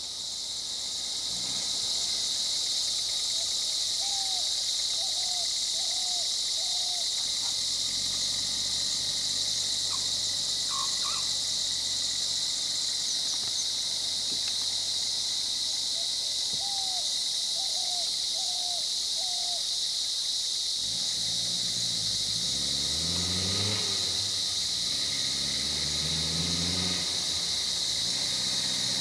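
Steady high-pitched drone of an insect chorus, with a bird giving two short runs of four chirps. A low hum that wavers up and down in pitch comes in for the last several seconds.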